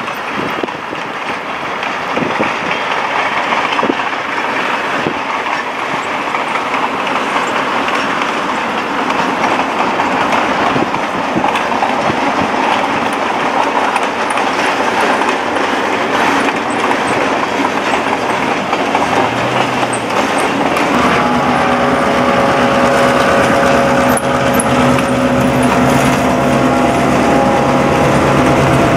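Rushing wind and road noise from pacing alongside the train. About two-thirds of the way in, the steady drone of the EMD GP9 locomotive's 16-cylinder diesel engine comes in, a hum of several steady tones that is loudest near the end as the locomotive draws close.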